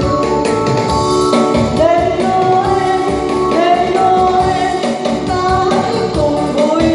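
A song: a singer's held, wavering notes over instrumental accompaniment with a steady beat.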